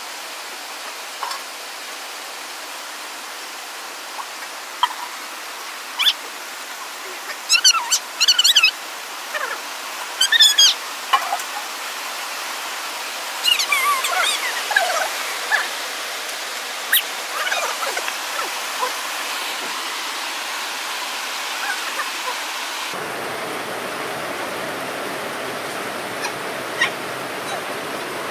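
Steady rush of running water, with scattered short clicks and a few brief high chirps in the first half.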